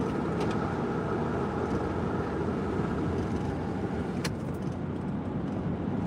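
Steady road and engine noise of a car driving along, heard from inside the cabin, with one light click about four seconds in.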